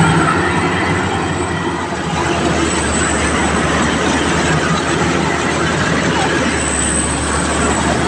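Rice combine harvester running steadily, its engine and machinery making a continuous loud mechanical din.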